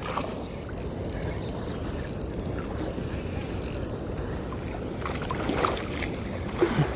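Fishing reel being cranked as a hooked fish is reeled in, with a steady rush of spillway water underneath.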